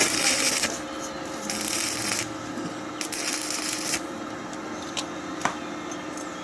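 Electric arc welding on a pipe joint: the arc crackles and hisses in three short bursts in the first four seconds, then a few sharp clicks, over a steady low hum.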